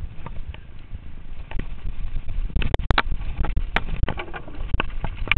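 Mountain bike clattering down a rough dirt trail over a steady low rumble of wind and riding noise. From about two and a half seconds in come sharper, louder knocks as the tyres run onto and over the planks of a wooden boardwalk.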